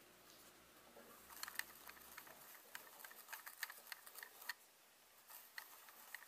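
Faint scratchy clicks and rustling of a tissue wiping the rear glass element of a Canon EF 50mm f/1.8 II lens, with fingers handling its plastic barrel; the clicks come in a quick run from about a second and a half in, then again near the end.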